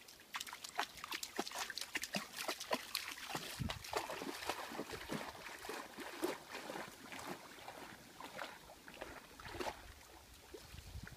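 A large dog splashing through shallow lake water as it bounds in after a stick, then swimming out; a quick run of splashes that thins out near the end.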